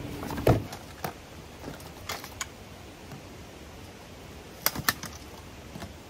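Camping gear being handled: a carry bag and metal poles give a rustle and thump about half a second in, then scattered light clicks and knocks, with two sharp clicks in quick succession near the end as the loudest.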